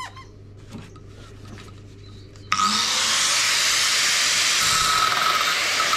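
Angle grinder with a new cutting wheel switching on suddenly about two and a half seconds in, then running at full speed with a steady hiss and whine. The wheel is held at the steel shell of a refrigerator compressor.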